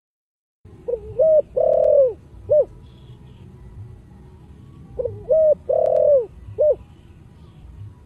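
Spotted dove cooing: two identical phrases about four seconds apart, each of two short notes, a longer note that falls at its end, and a short closing note.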